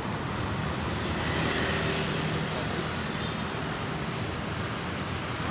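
Road traffic noise from cars passing close by, swelling about a second and a half in.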